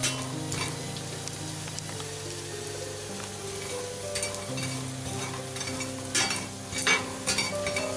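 Roasting chestnuts being stirred with a metal spatula in a stainless-steel frying pan: the spatula and shells scrape and clatter against the pan over a light sizzle, with the sharpest clatters near the end. Soft background music with held chords runs underneath.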